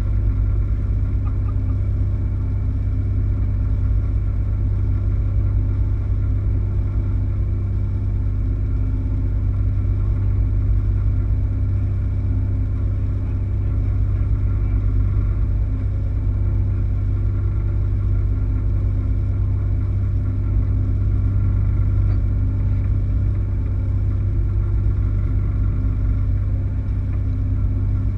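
Sailing yacht's inboard engine running at a steady speed: a constant low drone that holds the same pitch throughout.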